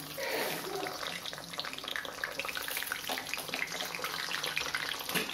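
Frozen potato fries sizzling in hot oil just after being dropped into the pan, a steady dense crackling and bubbling of deep-frying.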